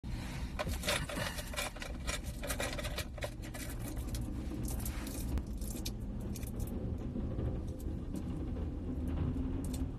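Clicks and scrapes of a handheld phone being handled against its microphone, thick during the first six seconds and sparser after. Under them runs a steady low rumble of the car around it.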